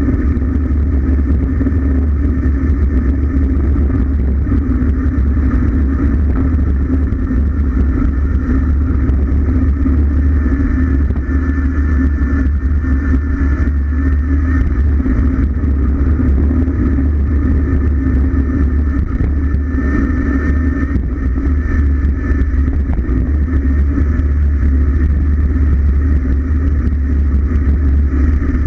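Steady wind noise buffeting a camera microphone moving fast down a road descent behind a cyclist. It is a loud continuous rush, heaviest in the low range, with a steady hum running underneath.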